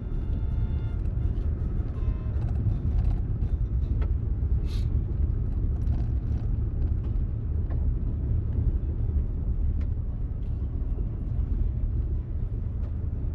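Steady low rumble of a vehicle driving slowly on an unmaintained dirt road, heard from inside the cabin, with a few short knocks and rattles from the rough surface.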